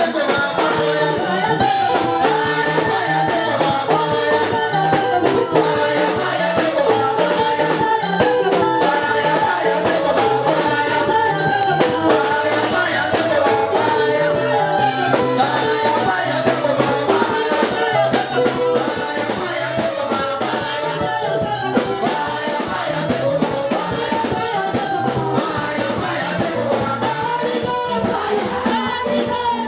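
Church worship music playing continuously at a steady level.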